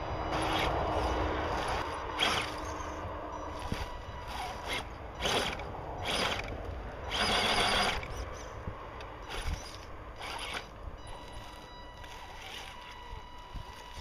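Axial SCX10 RC rock crawler's electric motor and geared drivetrain whirring in a string of short throttle bursts as it crawls over rock, the longest burst a little past the middle.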